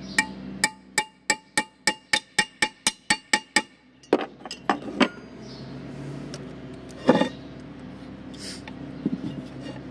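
Steel hex key clinking on the bolted valve plate of a Copeland compressor as its bolts are turned: a quick even run of about a dozen ringing clinks, about four a second, then a few slower clinks and one louder knock about seven seconds in.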